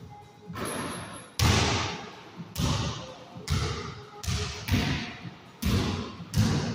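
Basketball bouncing on a hard floor, about seven or eight bounces at uneven spacing, roughly one a second. Each bounce echoes in a small, hard-walled room.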